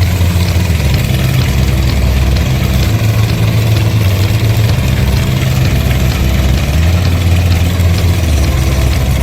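Petrol engine of a remote-control lawn mower running steadily, its pitch shifting a couple of times as the load on it changes.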